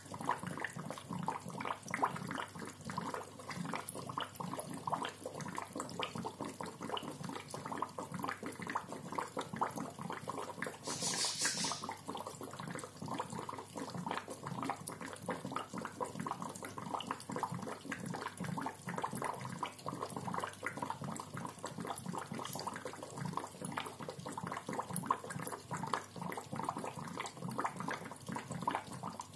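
Aquarium bubbler gurgling steadily under water, a fast, irregular stream of small bubble pops, with a short hiss about eleven seconds in.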